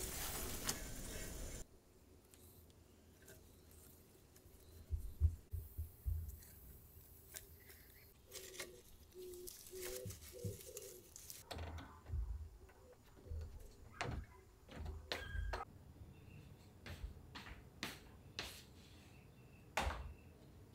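Cut flowering branches rustling and clicking as they are handled and gathered by hand, with scattered soft knocks on wooden boards. A steady hiss cuts off suddenly after about a second and a half, and a sharp knock comes near the end.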